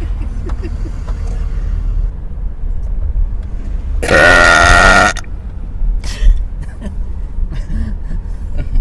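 A person belching loudly: one long burp of about a second, near the middle, over the low rumble of a car on the move.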